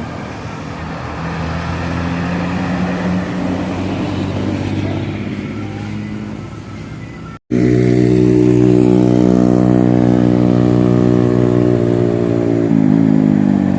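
Intercity bus's diesel engine pulling under throttle, its modified exhaust giving a deep snoring note with a raspy edge. About halfway through there is a sudden break, after which the engine comes in louder and steady. Near the end its pitch falls.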